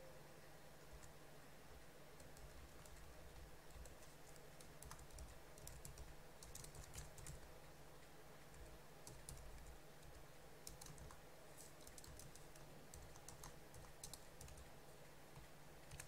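Faint typing on a computer keyboard: scattered keystrokes in short runs, over low room tone.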